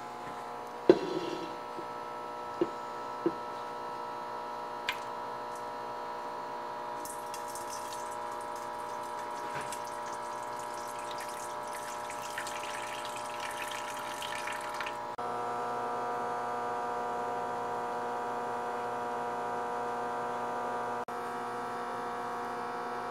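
Cooking liquid poured from a stainless steel Instant Pot inner pot into a metal colander in a sink, splashing for several seconds in the middle, over a steady electrical hum. A few metal clinks come in the first seconds, and the hum grows louder after the pour.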